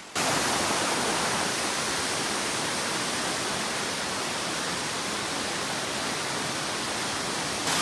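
Waterfall close by: a steady, even rush of falling water that starts suddenly at the beginning.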